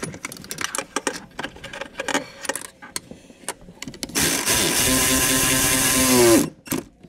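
Short clicks and knocks of hand tools on hardware. Then a handheld power tool runs steadily for about two seconds and winds down in pitch as it stops, tightening a fastener on the fuel filter mount.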